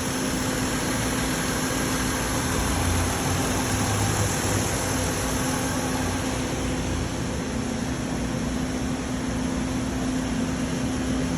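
Car engine idling steadily, with a constant hum over an even noise.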